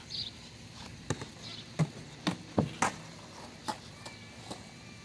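A skateboarder stepping off his board and walking away on a concrete sidewalk: a string of irregular sharp taps and knocks, about seven in all, spread over a few seconds.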